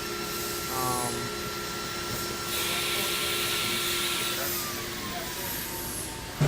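Haas VF-3 CNC vertical mill running with a steady whine. A hiss comes in for a couple of seconds in the middle, and about four and a half seconds in the whine glides lower in pitch. A sharp knock comes near the end.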